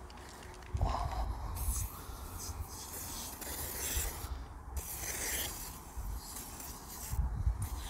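Aerosol can of disinfecting foam hissing as it sprays onto an air-conditioner filter, in several spurts with short pauses between, over a low uneven rumble.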